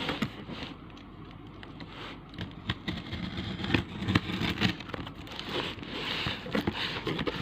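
Cardboard parcel box being opened by hand: irregular scraping and crackling of tape, cardboard and packaging, with scattered sharp clicks.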